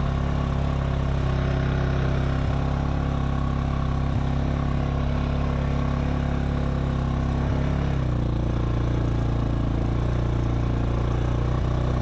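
ATV engine running steadily under way, its note dropping slightly about eight seconds in.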